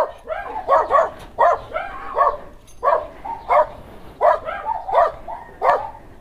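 A dog barking over and over, about two barks a second, in short runs.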